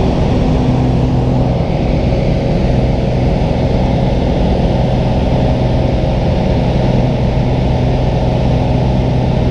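Light aircraft engine droning steadily at climb power, heard from inside the cabin as a constant hum over rushing noise.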